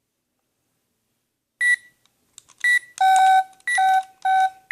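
Spy Gear toy door alarm beeping electronically: two short high beeps, then from about three seconds in a run of longer, lower beeps, roughly one every half second.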